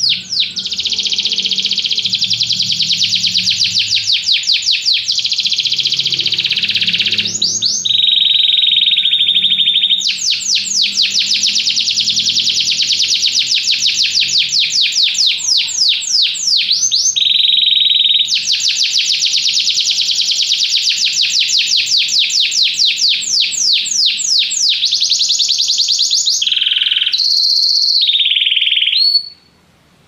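Domestic canary singing a long, loud song of fast rolling trills, broken twice by a held whistled note, then a few short varied phrases before it stops abruptly near the end.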